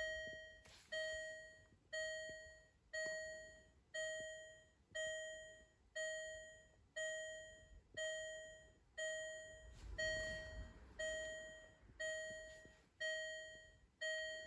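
Range Rover L494 dashboard warning chime sounding with the ignition on: a single bell-like tone that repeats about once a second and fades after each strike, about fifteen times.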